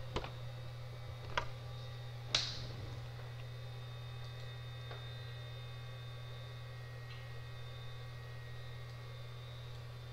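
Steady low electrical hum, broken by three sharp clicks in the first two and a half seconds; the last is the loudest and rings briefly.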